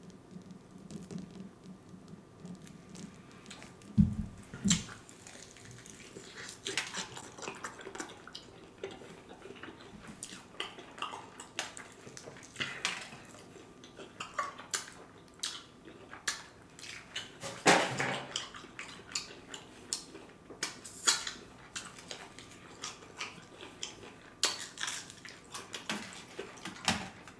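Close-miked eating sounds: irregular crunching and chewing of battered fried chicken, with scattered clicks and rustles of food being handled over a foil tray, and a low thump about four seconds in.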